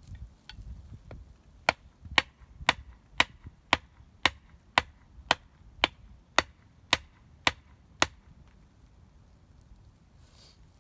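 Axe striking wood in a run of about a dozen sharp blows, roughly two a second, with a couple of lighter taps before them; the blows stop about eight seconds in.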